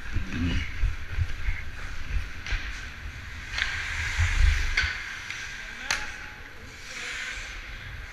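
Ice hockey skates scraping and carving on the ice, with several sharp clacks of stick and puck, heard over a rumble of wind on a helmet-mounted action camera's microphone as the wearer skates.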